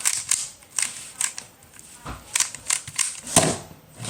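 Plastic Rubik's Cube being turned by hand, its layers clacking in irregular sharp clicks, a few a second, the loudest near the end.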